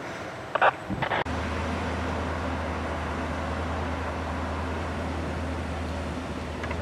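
Vehicle engine running steadily with an even low hum. Two brief loud noises come about half a second and a second in, just before it.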